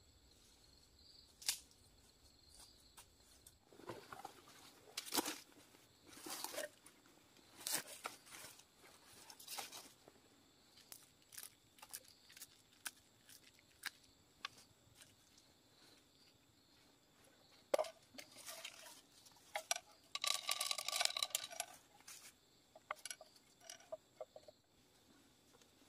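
Scattered rustles, clicks and crunchy scrapes of hands working a bamboo trap on dry leaf litter, with a denser scraping rattle about twenty seconds in.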